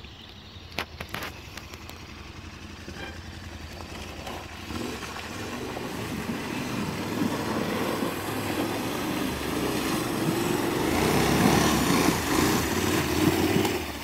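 KTM 1190 Adventure R's V-twin engine running as the motorcycle rides through a shallow creek, its tyres throwing up splashing water. The sound grows steadily louder as the bike comes closer.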